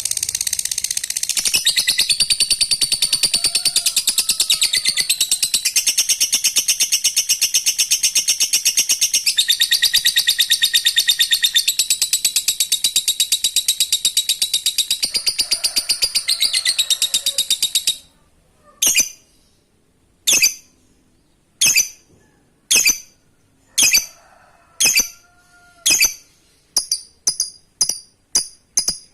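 Lovebird 'ngekek': a long, unbroken, very fast high-pitched rattling chatter for about eighteen seconds, then single sharp chirps about every second and a half, coming faster near the end.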